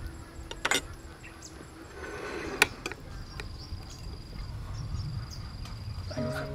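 Insects chirping steadily in the background, with two sharp clinks of a metal spoon against a ceramic plate, one under a second in and a louder one near three seconds in.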